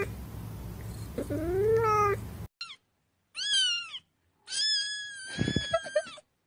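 A cat meows once, rising then falling in pitch, over a low steady hum. Then, after the hum cuts off, a kitten cries three times in high-pitched screaming meows, the last one long.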